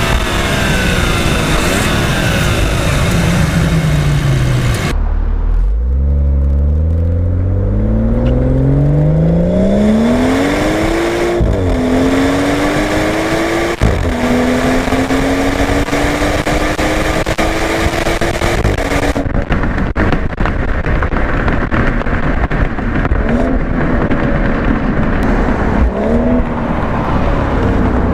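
BMW 340i's B58 turbocharged inline six, exhaust and intake together. The engine note falls at first, then about five seconds in it climbs hard from low revs. It drops back twice with quick upshifts of the ZF eight-speed automatic, pulls on, and the note drops away about nineteen seconds in.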